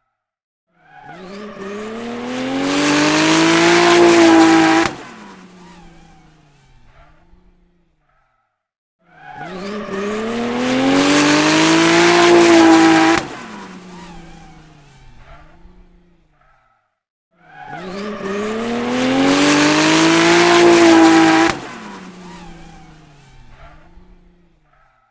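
Racing car passing by at speed, three times about eight seconds apart. Each time the engine note climbs in pitch as it closes in, cuts off suddenly, then fades away.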